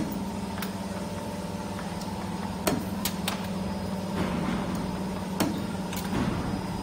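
CNC camless spring forming machine (ST25-10) running, bending small parts from 1.8 mm wire: a steady mechanical hum with sharp, irregular clicks and knocks, about half a dozen, as its tool slides work the wire.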